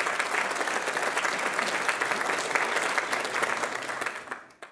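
An audience applauding, with many hands clapping at once; the applause dies away near the end.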